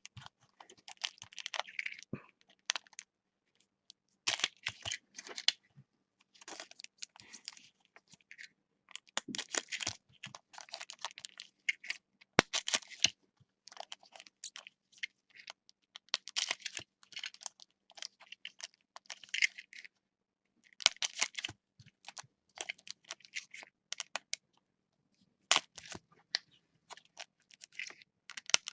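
Intermittent typing on a computer keyboard: short runs of key clicks separated by pauses.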